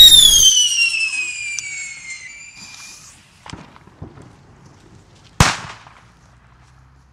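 A firework goes off with a sudden bang and a loud whistle that falls in pitch for about two and a half seconds. A couple of faint pops follow, then a single sharp firecracker bang about five seconds in.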